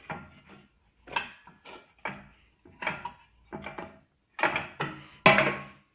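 Irregular metal clanks and knocks, about a dozen, as the steel table of a Euro Craft DP 201 drill press is worked onto its bracket and clamped on the column. The loudest clank comes near the end with a short metallic ring.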